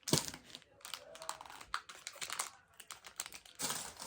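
Plastic toy packaging being cut open with scissors: irregular snips and clicks with crinkling plastic, a sharp snip right at the start and a louder rustle near the end.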